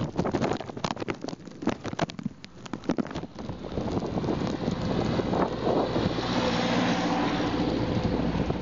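Mountain bike clattering over a rough, snowy road, with a rapid run of clicks and knocks for the first three seconds or so. After that, wind buffets the microphone in a steady rush as the bike heads into a headwind, and a low steady hum comes in during the second half.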